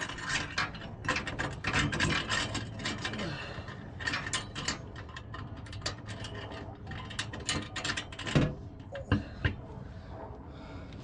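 Rapid, irregular metallic clicking and scraping from hand work on exhaust pipe parts, ratchet-like in places. It thins out after about eight seconds.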